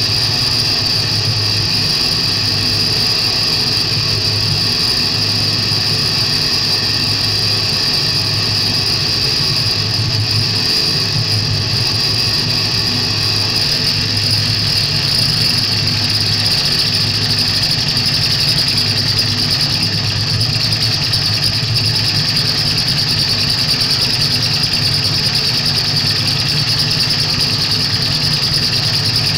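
Live electronic noise music: a loud, sustained drone with a piercing high whine over a low hum that swells and drops.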